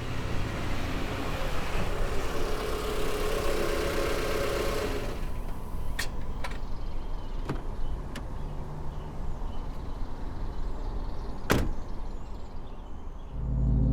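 Vehicle noise: a loud broad rush that dies away about five seconds in, followed by a handful of sharp clicks and knocks. Deep, low music swells in near the end.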